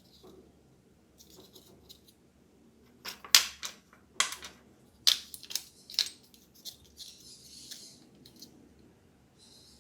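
A handful of sharp snips and clicks, like scissors or small plastic parts being worked by hand, the loudest about a third of the way in, followed by a short scratchy rustle near the end.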